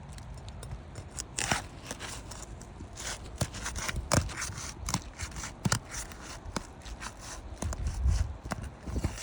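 Asphalt architectural shingle crackling and crunching in irregular sharp cracks and scrapes as it is pried up and bent back. The shingle is badly delaminating. There is a dull bump about eight seconds in.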